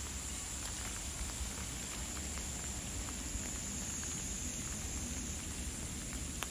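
Rain falling on the path and pond: an even hiss with scattered small ticks of individual drops, over a low rumble.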